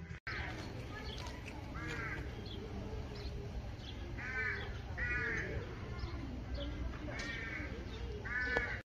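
Crows cawing, five short harsh calls spaced a second or two apart, over a low steady rumble.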